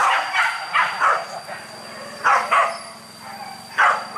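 Boar-hunting dogs barking in short, sharp yelps: a quick run of barks at the start, two more a little after two seconds in, and one near the end.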